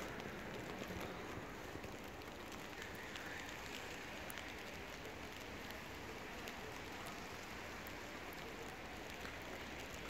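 Wet snow falling and pattering on the ground and surfaces: a steady hiss with scattered faint ticks.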